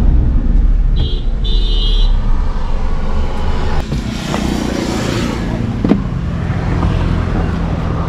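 Road traffic beside a parked car: a steady low engine hum, with a motorcycle passing about four to five seconds in. Short high beeps sound near the start, and there is a sharp click about six seconds in.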